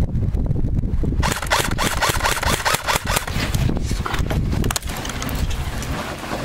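Footsteps and rattling gear of an airsoft player on the move, with heavy rumble of handling on the camera microphone. A quick string of short squeaks comes between about one and three seconds in.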